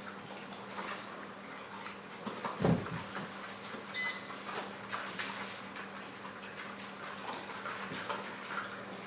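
Six-week-old whippet puppies at play: scattered light clicks and scuffles of paws and claws, with a louder thump a little under three seconds in.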